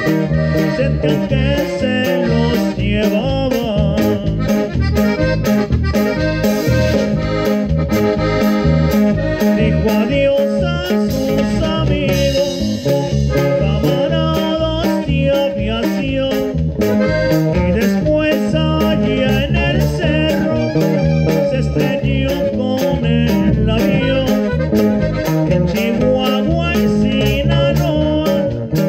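Live norteño band music: a button accordion plays a wavering, ornamented melody over strummed guitars and a drum kit keeping a steady beat.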